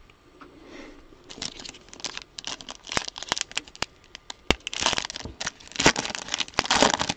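Plastic Panini Prizm card-pack wrapper crinkling and tearing as it is opened: a run of sharp crackles and rustles that grows busier near the end.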